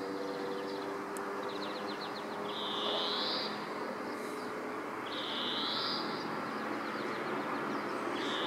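European greenfinch singing: a drawn-out, rising, nasal wheeze repeated about every two and a half to three seconds, each wheeze preceded by a short rapid trill of ticking notes. A steady background rush runs underneath.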